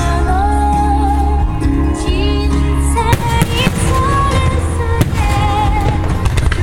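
A song with a singer plays loudly over the display's speakers, with firework shells bursting over it in sharp bangs, the clearest just after three seconds and at five seconds.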